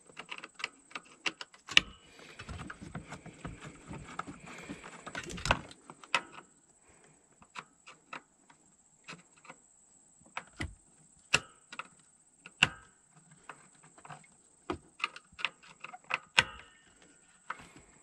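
Irregular clicks and taps of a hand tool and the plastic steering-column cover being worked loose as its screws come out, with a stretch of scraping and rustling a couple of seconds in.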